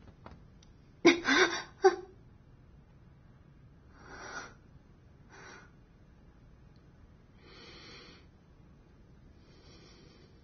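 A person breathing heavily: a loud, sharp voiced gasp about a second in, then four slower, softer breaths spaced a second or two apart.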